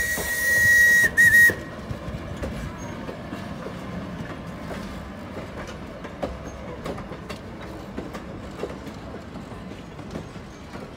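A train whistle blows one steady, high note with a hiss for about a second and a half, broken briefly near its end. Then passenger cars and a caboose roll past, wheels rumbling with scattered clicks over the rail joints.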